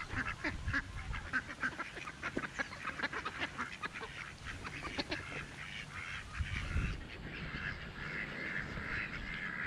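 A crowd of mallards and domestic ducks quacking and calling over one another, many short calls overlapping, turning to a denser, steadier chatter about seven seconds in.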